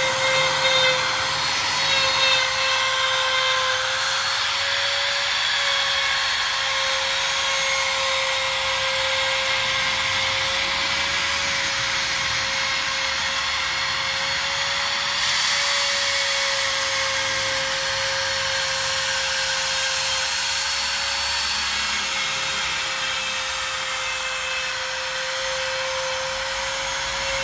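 Corded compact trim router running at full speed, its bit cutting a circular groove in a wooden board as it is swung around on a trammel arm. A steady high motor whine, its pitch wavering slightly as the bit takes load, over the noisy rasp of the cut.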